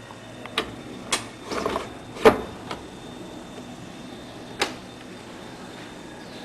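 Brastemp Tira-Manchas top-loading washing machine: a series of irregular knocks and clunks over a steady low hiss, the loudest a little over two seconds in.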